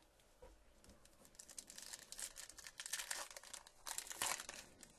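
Plastic-foil wrapper of a baseball card pack crinkling and crackling as it is torn open, starting about a second and a half in and dying away near the end.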